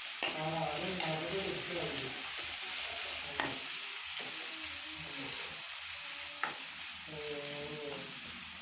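Sliced onions and green chillies sizzling in hot oil in a pan while being stirred, with a few sharp clicks of the spatula against the pan.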